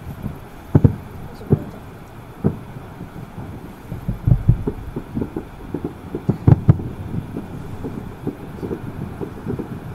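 Distant fireworks going off across the water, heard from inside a car as irregular dull thuds, some in quick clusters.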